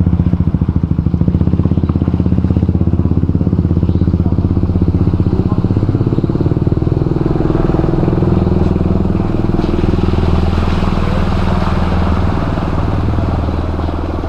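A vehicle engine running steadily close by, with a fast, even pulse. About ten seconds in, a steady hiss joins it.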